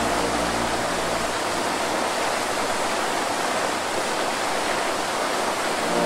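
Steady rushing of a waterfall, with the last low notes of music dying away in about the first second.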